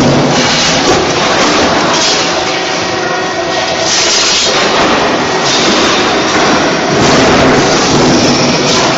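Production-line machinery forming steel U-type bracing for solar water heater support frames, running loudly and steadily, with swells about four seconds in and again about seven seconds in.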